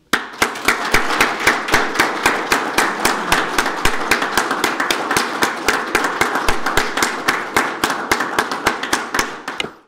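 Room applause: a crowd of hands clapping, with one pair of hands close by standing out as sharp, regular claps about three a second. It cuts off suddenly near the end.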